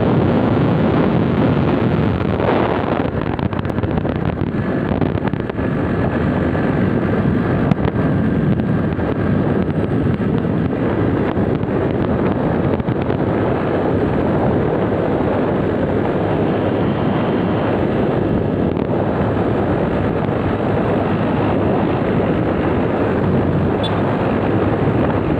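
Wind rushing over the microphone of a moving motorcycle, with engine and road noise under it, loud and steady.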